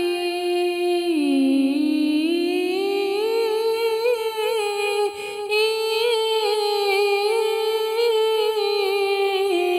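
A woman singing a devotional Urdu manqabat unaccompanied, drawing out one long wordless phrase. Her held note dips about a second in, climbs back over the next few seconds and then wavers in small ornaments.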